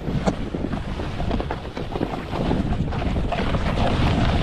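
Wind buffeting the microphone over the scrape of a snowboard sliding across snow, growing louder about two and a half seconds in.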